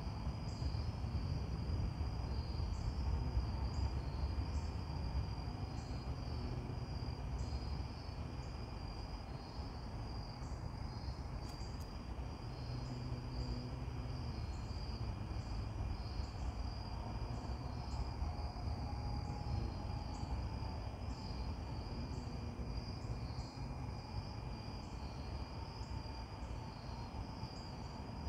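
Steady chorus of insects, such as crickets, keeping up a continuous high pulsing trill, over a low rumble.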